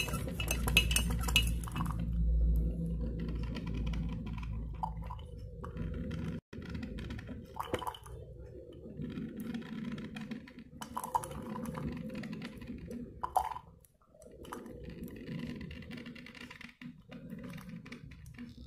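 A metal spoon stirring in a ceramic mug, clinking quickly against the sides for the first two seconds, then a few separate clinks further on.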